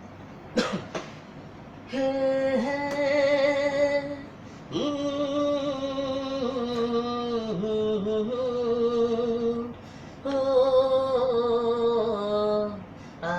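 A man singing unaccompanied in long, wordless held notes: three phrases with short breaths between, the pitch wavering slightly on each held note.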